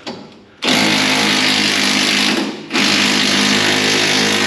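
Impact wrench running hard on a drag car's rear shock mount bolt, which is under heavy spring pressure from bound-up coilovers. It starts well under a second in, breaks off briefly about halfway, then runs on steadily.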